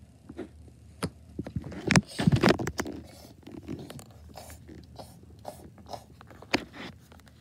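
Handling noises of plastic toys: a string of small clicks and scrapes as a toy spoon is worked against a plastic baby doll's mouth, with a louder scraping rustle about two seconds in.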